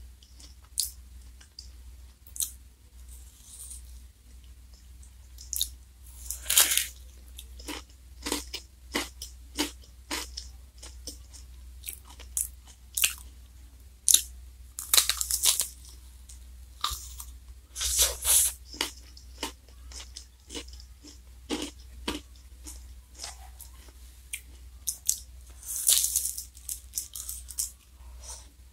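Close-miked crunching and chewing of a crisp black wafer ice cream cone (Glico Wings J-Cone), with sharp crunches every second or so and a few longer runs of crunching as bites are chewed. A steady low hum sits underneath.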